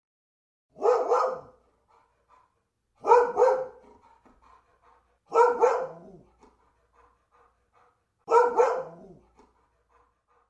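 Dog barking: four bouts a couple of seconds apart, each a quick double bark.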